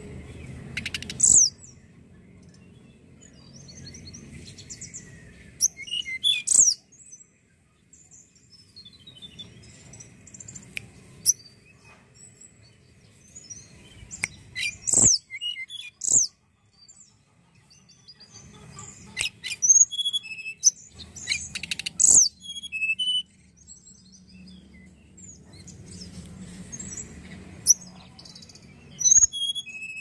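Hill blue flycatcher (tledekan) singing in short, scattered phrases of high, sharp notes and quick trills, with pauses between phrases, over a faint low rumble.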